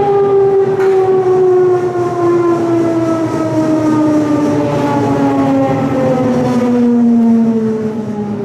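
Traction motors of a Berlin S-Bahn class 485 electric multiple unit whining, heard inside the passenger car, the whine falling steadily in pitch as the train slows, over the rumble of the running gear.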